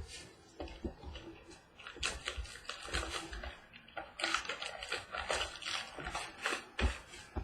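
Packaging of a trading-card box being handled and opened: irregular crinkling, rustling and small clicks.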